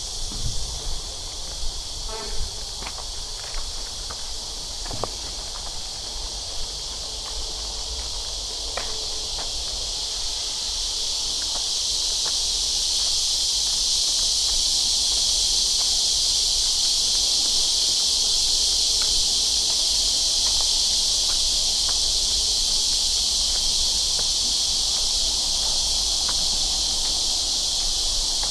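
Cicadas singing in a steady, high-pitched chorus that swells over the first dozen seconds and then holds. A few light footsteps and ticks sound in the first several seconds.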